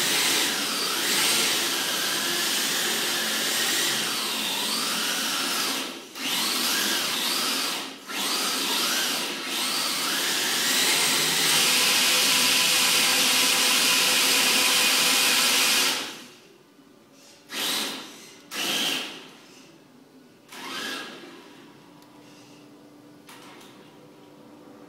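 Tamiya TB02D electric RC drift car running: a motor-and-drivetrain whine that rises and falls in pitch with the throttle, with a few brief lifts off the throttle. The whine holds steady and loud for a few seconds, then cuts off about two-thirds through, followed by a few short blips of throttle.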